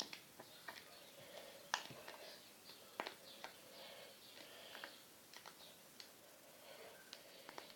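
Near silence in a small room, broken by scattered faint sharp clicks and taps. Faint chirping runs in the background.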